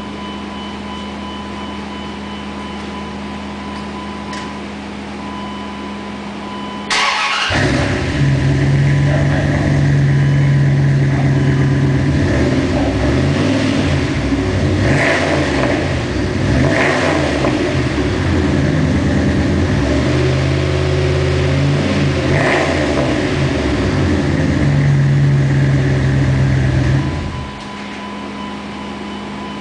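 Dodge Ram's 5.9 L 360 V8 running through a new single-in, dual-out Flowmaster exhaust. About seven seconds in it starts up suddenly, then idles with a deep rumble and is revved briefly about three times. It shuts off a few seconds before the end, leaving a steady background hum.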